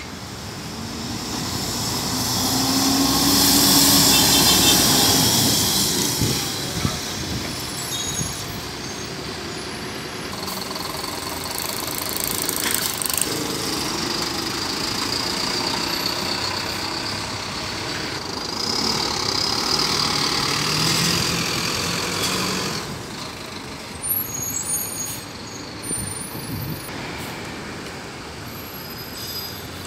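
City buses pulling out and driving past one after another, their engines loudest as the first passes close a few seconds in and swelling again about twenty seconds in, with a short hiss of air brakes near the middle.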